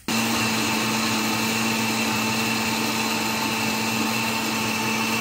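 Countertop blender switched on and running steadily, grinding guajillo chiles, garlic and cumin into a red salsa: a steady motor hum under a loud whirring rush.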